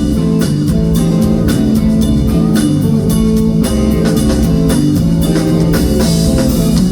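Rock band playing live: electric guitars, bass and drum kit in an instrumental passage with no vocals, with steady drum hits.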